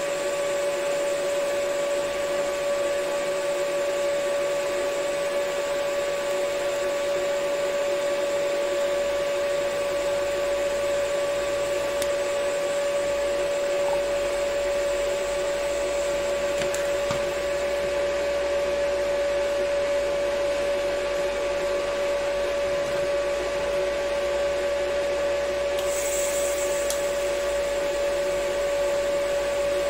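TIG welding steel: the welder and arc give a steady, even whine with a hiss beneath it. A brief sharper hiss sounds a few seconds before the end.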